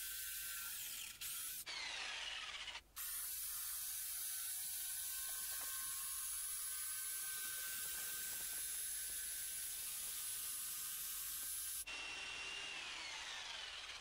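Corded jigsaw running and cutting through a plywood sheet: a steady high-pitched buzz of the reciprocating blade, which drops out briefly about a second in and again near three seconds.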